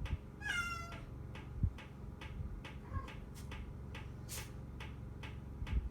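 A kitten meows once, about half a second in: a short, high-pitched mew that falls in pitch, with a fainter mew about three seconds in. Two soft low thuds and a faint regular ticking, about three ticks a second, sound underneath.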